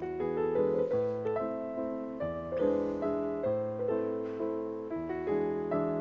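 Background piano music: a melody of single notes over changing low notes.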